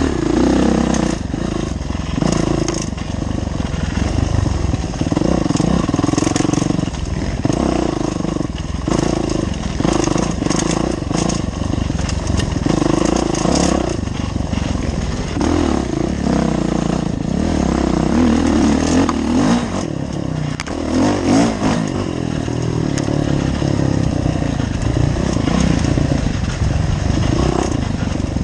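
Off-road dirt bike engine revving and easing off over and over as it is ridden hard, with short sharp knocks here and there.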